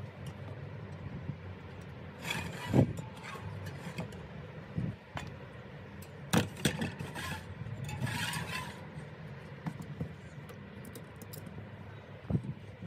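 A bicycle wheel being handled on a plastic bucket: a few sharp knocks and scrapes, with a short scratchy rustle about eight seconds in, over a steady low hum.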